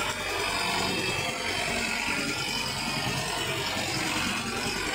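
Sonalika tractor's diesel engine running steadily under load while it drives a rotavator through a flooded, muddy field.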